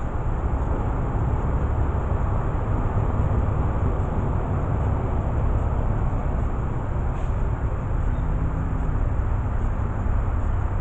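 A steady low rumble of outdoor background noise, with a faint low hum coming in about eight seconds in.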